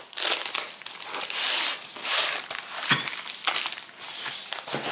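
Plastic packaging crinkling and rustling in bursts as it is handled and opened, with a light knock about three seconds in and another near the end.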